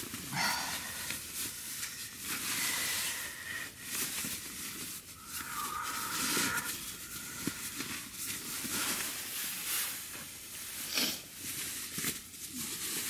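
Nylon fabric of a Marmot CWM sleeping bag and its stuff sack rustling and crinkling as the bag is compressed and the drawstring cinched, with a few brief higher tones mixed in.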